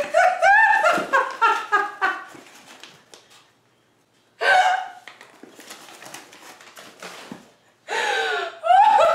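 A woman laughing hard: quick runs of short, high-pitched laugh bursts, about a second of breathless quiet after roughly three seconds, then the laughter starting up again in bursts near the end.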